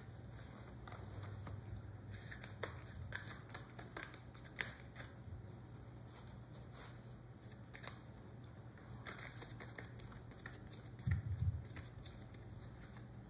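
Faint handling of a random-orbit sander and its perforated sanding disc: scattered small clicks and rustles over a low steady hum, with one soft thump near the end. The sander's motor is not running.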